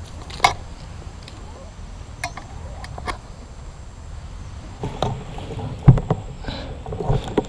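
Scattered light clicks and knocks of handling on an air rifle propped on a bipod, with one louder low thump about six seconds in, over a steady low background rumble.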